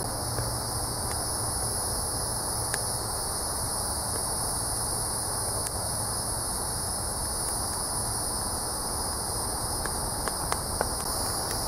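A steady, high-pitched chorus of insects chirring, with a low, even rush beneath it from the wood fire burning hard in a metal-bucket stove. A few faint pops come now and then.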